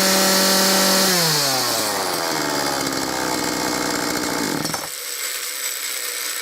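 Gardenline GLPC 41 two-stroke chainsaw revved high with no cut, run to check how much chain oil it throws with the oiler set to bare minimum. After about a second the revs fall steadily, and the engine note is gone by about five seconds in, leaving a hiss.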